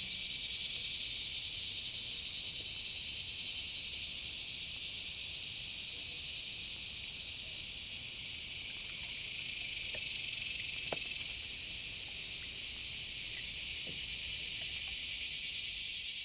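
Steady chorus of summer insects, a dense high shrill hiss with a slight pulse. A single light knock sounds about eleven seconds in.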